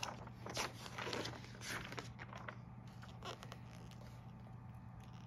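Paper rustling as the pages of a book are handled and turned: several short rustles in the first three seconds, then quieter.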